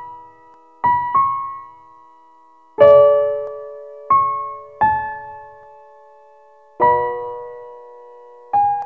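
Slow background music on a piano-like keyboard: sparse single notes and chords, each struck and left to ring out, about every one to two seconds.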